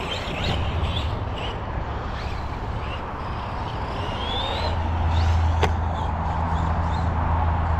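A 1/10-scale electric RC monster truck running outdoors, with a steady low hum that grows louder about halfway through and a single sharp knock near the three-quarter mark. Short high chirps sound in the background.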